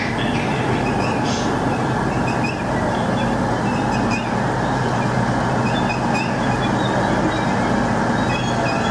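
Freight train of tank wagons rolling past at steady speed, with an even sound of wheels on rail.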